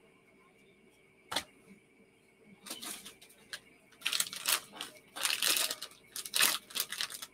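A plastic packet of Haribo Pontefract cakes being handled, crinkling and rustling in irregular bursts. A single sharp click comes about a second in.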